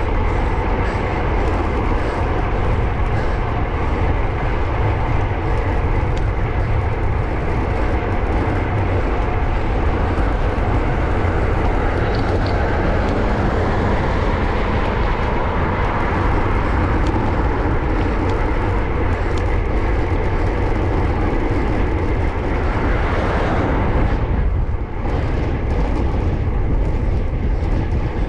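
Steady, loud wind noise buffeting the microphone of a road bike's action camera, mixed with the rumble of the tyres rolling on rough tarmac.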